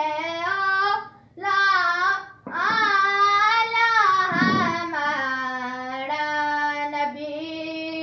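A boy singing a naat, a devotional Urdu song in praise of the Prophet, unaccompanied. He sings long, wavering phrases with short breaks about a second and two and a half seconds in, then holds one long note from about halfway to the end.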